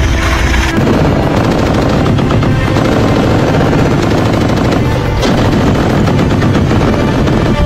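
Machine gun firing in long, rapid bursts, starting about a second in, with music underneath.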